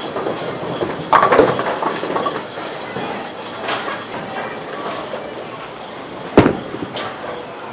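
Duckpin bowling alley: balls rolling along the wooden lanes with a steady rumble, with pins clattering about a second in and a single sharp crash a little past six seconds.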